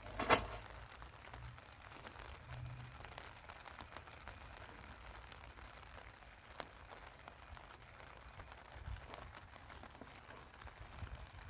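Faint open-air ambience: one brief, loud burst of noise about a third of a second in, then a low steady hush with scattered small ticks and clicks.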